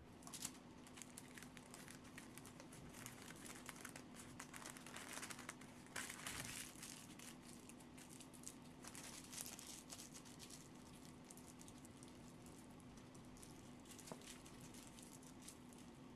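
Parchment paper crinkling and rustling as it is rolled around raw chicken breast and its ends twisted shut like a candy wrapper. The crackle is busiest in the middle of the stretch and thins out near the end, over a faint steady hum.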